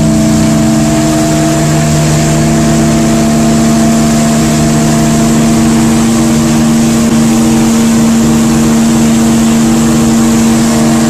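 The SS Normandie's second steam whistle sounding one long, deep, steady blast, with a hiss of steam under the tone.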